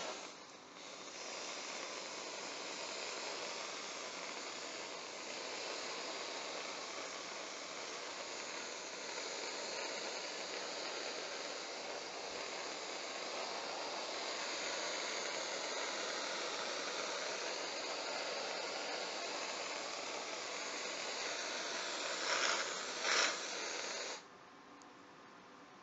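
Aerosol whipped cream can spraying in one long, continuous hiss, with a couple of louder spurts near the end before it stops abruptly.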